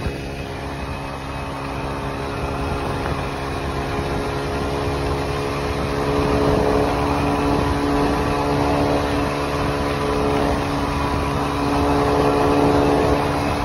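Honda 125cc scooter's engine running steadily at cruising speed, about 80 km/h, a droning hum over a rush of wind and road noise. The hum grows a little louder about six seconds in.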